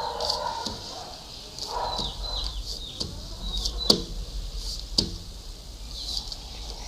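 Paper being folded and creased by hand: rustling in the first two seconds, then two sharp taps about a second apart.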